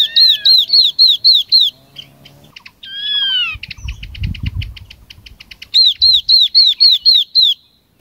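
Yellow-eyed babbler calling, a recording used as a lure call: a run of about seven quick, clear, falling whistles, then a lower two-part whistled phrase and a fast dry chatter with a brief low rumble under it, then another run of falling whistles near the end.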